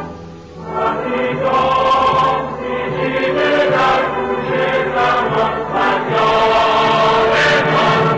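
Background music with a choir singing. The music drops away briefly at the start, then the voices come back in.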